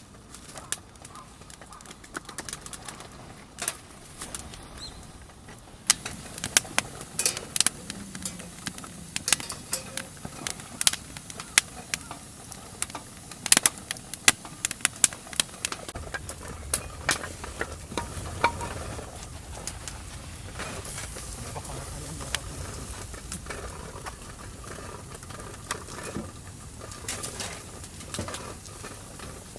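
Dry grass and kindling crackling and snapping as a campfire is being lit: a run of sharp pops and cracks, then a low steady rumble with scattered crackles.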